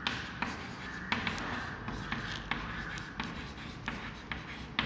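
Chalk writing on a chalkboard: scratchy strokes broken by many sharp taps as the chalk meets the board.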